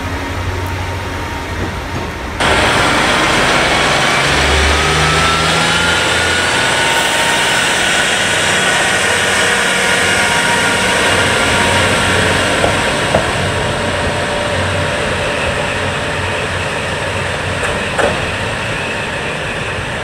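KiHa 40 series diesel railcar standing at the platform with its engine running: a loud, steady rumble with a faint whine that slowly rises and then sags. The sound jumps louder about two seconds in, and a few light clicks come near the end.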